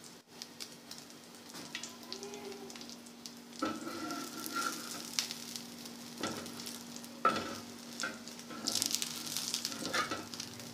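Egg-dipped bread slice shallow-frying in oil on a tawa, a quiet steady sizzle. A few light knocks sound through it, and the sizzle briefly grows louder and brighter about nine seconds in, as when the slice is turned over.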